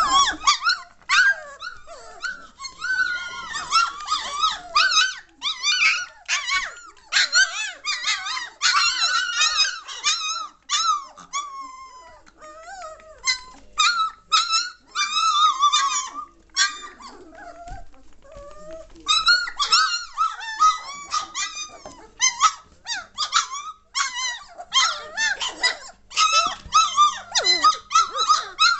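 A litter of three-week-old German shorthaired pointer puppies crying, with many short high-pitched calls that bend in pitch and often overlap as several pups call at once. There is a brief lull a little past halfway.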